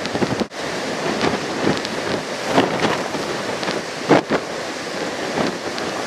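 Tropical-storm wind buffeting the microphone in irregular gusts over the rushing roar of heavy surf breaking on rocks and a seawall.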